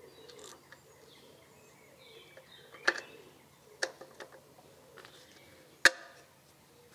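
Three sharp metallic clicks as a connecting-rod bearing cap with its shell bearing is fitted by hand onto a crankshaft journal of a Citroën U23 engine, the last click the loudest, with a few lighter ticks between.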